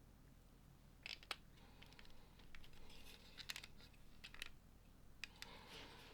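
LEGO pieces being handled and snapped together: several sharp plastic clicks with light scraping and rummaging between them.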